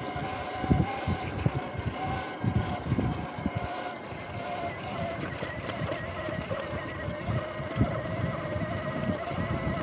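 Electric bike's motor whining steadily while riding over bumpy grass, with irregular low buffeting and thumps from wind on the microphone and the rough ground.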